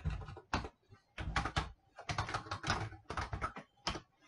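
Typing on a computer keyboard: short runs of key clicks with brief pauses between them.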